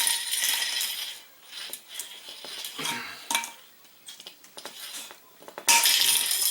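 Metal tool scraping, clinking and prying against a cut-open spray paint can, with a ringing metallic edge. The scraping is heavy at first, thins to scattered clicks in the middle, and picks up loudly again near the end.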